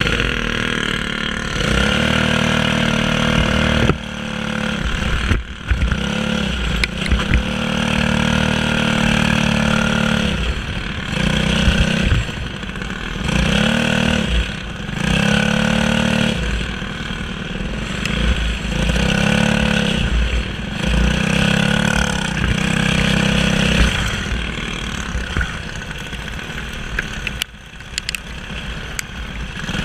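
Kart's single-cylinder Briggs & Stratton LO206 four-stroke engine running on track, heard close up, revving up and easing off again and again as the driver goes on and off the throttle.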